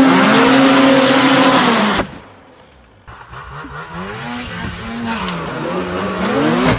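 Snowmobile engine running at high revs with a steady pitch, stopping abruptly about two seconds in. After about a second of quieter sound, a snowmobile engine revs up and down repeatedly, growing louder.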